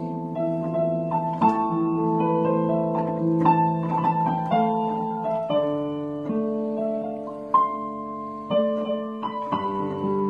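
Electronic keyboard played with a piano sound: a slow melody over held chords, new notes struck about once or twice a second.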